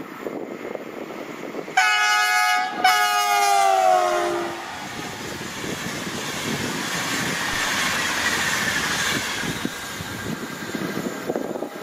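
ÖBB Railjet passenger train sounding its horn in two loud blasts, each a chord of several tones, the second longer and sliding down in pitch as it ends. The train then passes at speed, its wheels rolling on the rails in a steady noise that swells and then fades.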